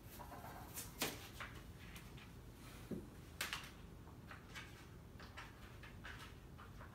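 Knife slicing carrots on a plastic cutting board: faint, irregular knocks of the blade striking the board, with louder strokes about a second in and again a little past the middle.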